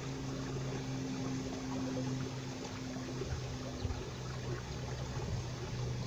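Valley stream water running over rocks, a steady rushing hiss, with a steady low hum underneath.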